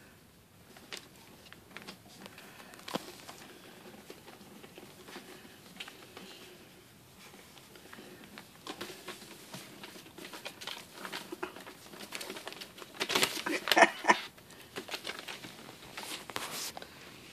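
Newspaper rustling and crinkling under a squirming schipperke puppy as a hand rubs it, in scattered small crackles, with a louder burst of crinkling about three quarters of the way through.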